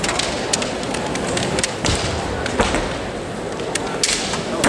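Scattered sharp clacks and knocks of bamboo shinai and feet on a wooden gym floor during a kendo bout, about nine at irregular intervals, over the steady din of a busy hall.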